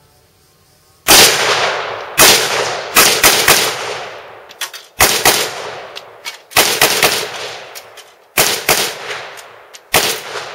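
Zastava M70 NPAP AK-47-pattern rifle firing 7.62×39 mm rounds semi-automatically: about a dozen rapid shots in quick strings of two or three, each trailing off in a fading echo.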